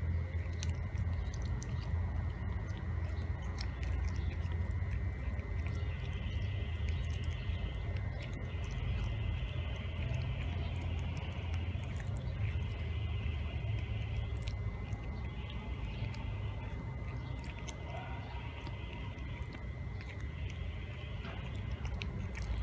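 A cat chewing and gnawing raw chicken wings: a run of small irregular clicks and crunches, over a steady low rumble.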